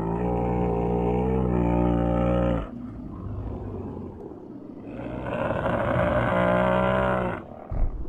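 Two dinosaur roar sound effects, each a long pitched roar over a deep rumble. The first ends about two and a half seconds in, and a lower growl carries on until the second roar rises at about five seconds and ends near seven and a half.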